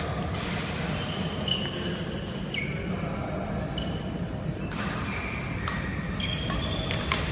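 Badminton rally: sharp cracks of rackets hitting the shuttlecock, one at the very start and several more in quick succession near the end, with a few short high squeaks in between. It all sounds over the steady background noise of a large sports hall.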